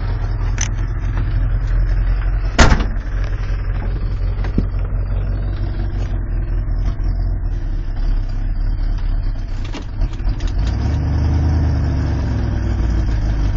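1986 Ford F150's carbureted 302 V8 running, heard from inside the cab, with a sharp knock about two and a half seconds in and a few lighter knocks. The engine works harder from about three-quarters of the way through as the wheels spin in the mud, the front hubs not locking in.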